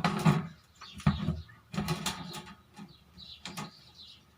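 Plastic parts of a table fan clicking and knocking as they are handled and fitted together, a few separate knocks spread over a few seconds.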